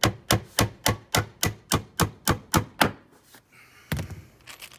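Hammer driving a galvanized finishing nail into wooden tongue-and-groove soffit boards: a quick, even run of about eleven blows, roughly three and a half a second, then a few scattered taps about four seconds in.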